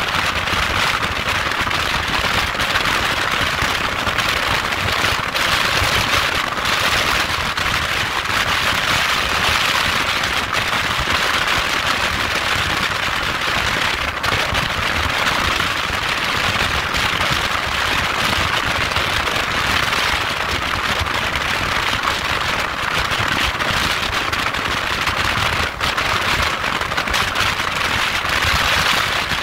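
Wind rushing over the microphone of a motorcycle-mounted camera at highway speed: a steady, loud hiss with constant crackling buffeting, covering the bike's engine and tyres.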